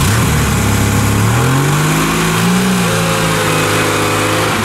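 Lada Niva's four-cylinder petrol engine revving hard under load as it pulls up a muddy rut: the pitch rises over the first couple of seconds, is held high, then drops suddenly near the end.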